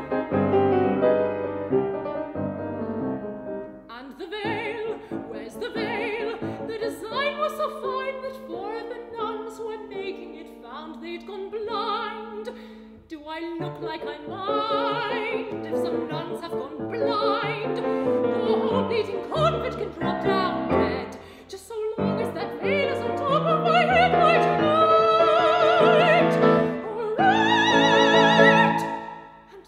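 A soprano singing an aria in operatic style with vibrato, accompanied by a grand piano, rising to long held high notes near the end.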